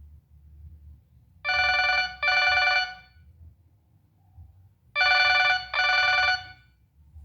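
Nokia 6585i mobile phone playing a ringtone that imitates an old telephone bell: a warbling double ring, repeated about three and a half seconds later.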